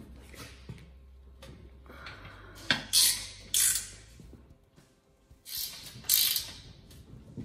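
Ratchet spanner clicking in short rasping bursts as the bolts holding a bench vise to a steel bench top are tightened. The loudest bursts come about three seconds in and again about six seconds in.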